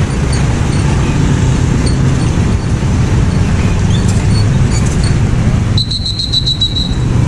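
Road traffic: motor scooter and car engines running as they drive over a railway level crossing. Near the end a brief high, rapidly pulsing trill sounds for about a second.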